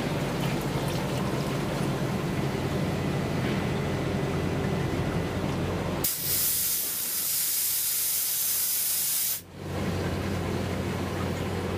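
CNC machining center running with a steady low hum. About six seconds in, a loud hiss like a spray or air blast takes over for about three and a half seconds and cuts off suddenly, and the machine hum returns.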